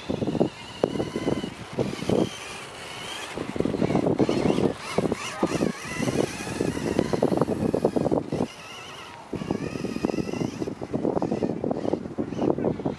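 Electric motor and gears of a Kyosho Ultima 2WD RC buggy whining, rising and falling in pitch as the throttle comes on and off. The tyres crunch and scrabble on loose dirt.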